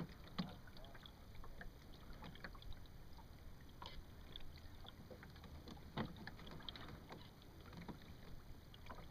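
Faint water lapping against the hull of a small sailboat in light ripples, with scattered small splashes and light knocks; the sharpest come about half a second in and about six seconds in.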